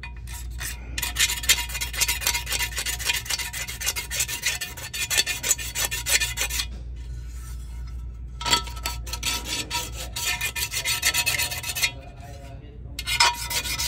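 Old gasket material being scraped off the metal flange of a golf cart's rear-end differential pan. The scraping comes as rapid rasping strokes in three bursts with short pauses between; the first burst is the longest.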